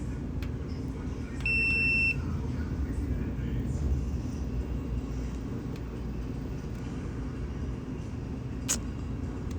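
A digital multimeter in continuity mode beeps once, a short steady high tone of about half a second: the tone that signals continuity between its probes. A steady low hum runs underneath.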